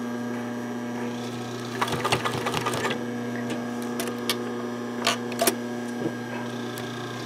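Sewing machine stitching a short run of a few stitches about two seconds in, then a handful of separate clicks, over a steady hum. These are tacking stitches across the end of a zipper on terry towelling.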